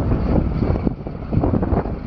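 Diesel truck engine, a Detroit Diesel 8.2L V8, running steadily, with wind buffeting the microphone in uneven gusts.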